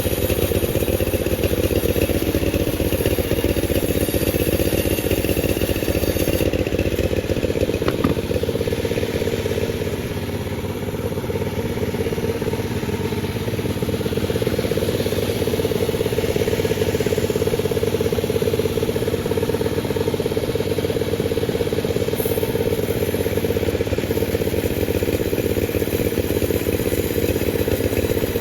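Panda36 two-stroke chainsaw running at high speed while cutting through a durian log; the engine note dips briefly around ten seconds in, then comes back up.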